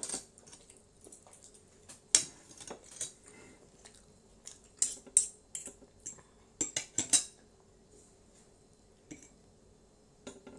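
Metal spoon and fork clinking and scraping against plates during a meal: scattered sharp clinks, the loudest about two seconds in, with quick clusters around the middle.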